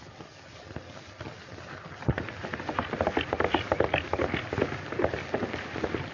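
A galloping horse's hooves pounding the ground in fast, irregular beats, starting about two seconds in over the faint hiss of an old film soundtrack.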